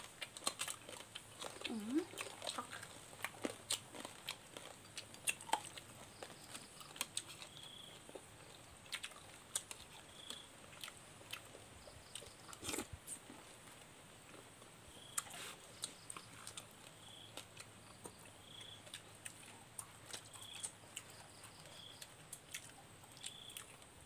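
Close-up eating sounds of people chewing and biting food: many small irregular smacks, clicks and soft crunches.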